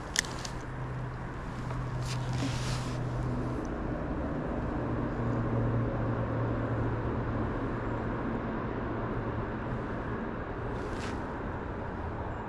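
A motor vehicle passing nearby: a low, steady engine and tyre hum that swells for about six seconds and then fades, over an outdoor background hiss.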